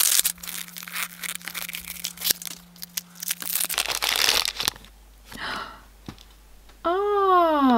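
A foil blind bag crinkling and tearing as it is pulled open and unwrapped, with clicks from handling its plastic can. Near the end, a short voiced exclamation whose pitch rises and then falls.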